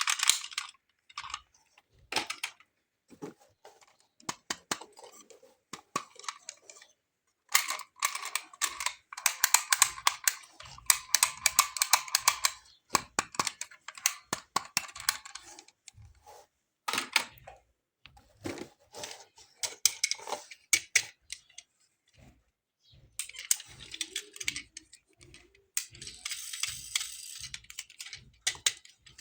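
Close-up handling of toy cars and their plastic packaging: sharp clicks and dense runs of crinkling, in bursts with short pauses between.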